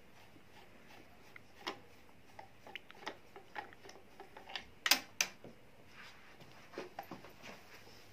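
Light, irregular clicks and ticks of a screwdriver working the rear screw out of an electric stand fan's plastic motor housing, with two sharper clicks about five seconds in and a few more near the end as the screwdriver comes out.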